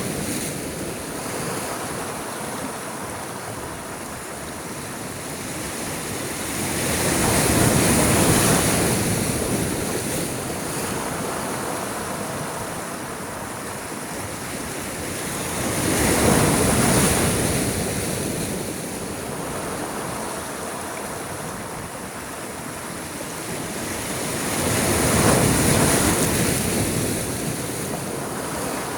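Sea waves breaking and washing in, with a steady hiss of surf that swells three times, about every nine seconds. Some wind on the microphone.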